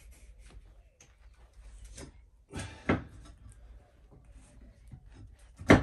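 A few sharp knocks and clunks from a pry bar working at bolts in a rotted camper slide-out floor, the loudest near the end. The bolts are not coming free.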